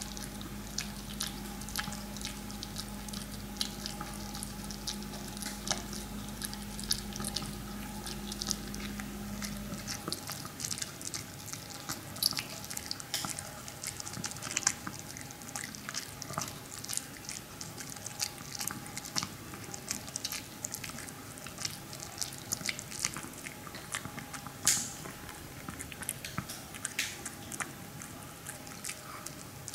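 Maltese dog chewing a slice of dried pig ear: a quick, irregular run of small crunching clicks. A low steady hum runs under the first ten seconds and then stops.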